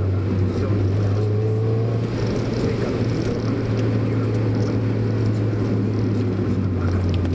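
Mazda Roadster's engine and road noise heard inside the cabin, a steady low drone while cruising at an even speed.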